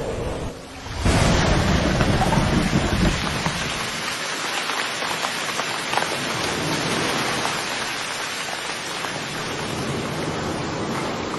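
Heavy rain pouring down in a thunderstorm. It starts suddenly about a second in, with a deep rumble of thunder under it for the first couple of seconds, then settles into a steady, dense hiss of rain.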